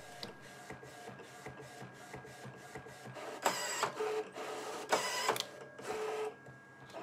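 Primera Impressa IP60 inkjet photo printer printing: the print head carriage shuttles back and forth in short, even strokes, about three or four a second. In the second half come four louder motor whirs, each about half a second long, as the finished 2x6 inch strip is fed out.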